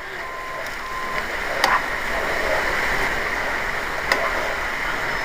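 Sausage, onions, mushrooms and spinach sizzling in a frying pan as the spinach wilts, a steady hiss, with two sharp clicks, one about a second and a half in and one about four seconds in.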